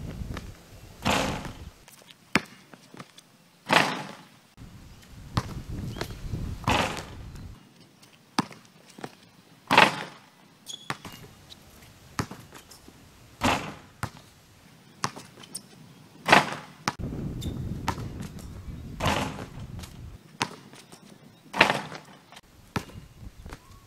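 Basketball thuds on a concrete court and on a hoop's rim and backboard during dunk attempts: about ten sharp single hits a couple of seconds apart, with a low rumble at times between them.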